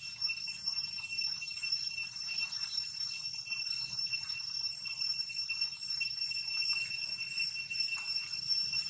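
Steady high-pitched insect chorus: several shrill tones ringing without a break, with a faint pulsing.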